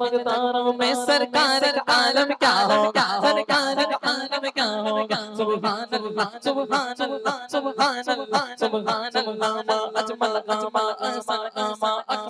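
Man singing a naat into a microphone over a sound system, a devotional Urdu chant in a melismatic voice, with a steady low tone held beneath it.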